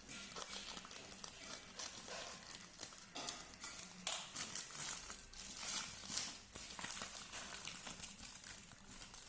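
Courier packaging cover being torn open and handled by hand: irregular crinkling and rustling with sharp ripping and tearing strokes.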